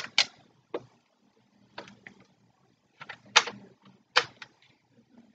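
Handling noise from a plastic toy Zombie Strike crossbow blaster: a handful of short, irregular clicks and knocks as its parts are worked while trying to load a foam dart. The loudest clicks come about three and a half and four seconds in.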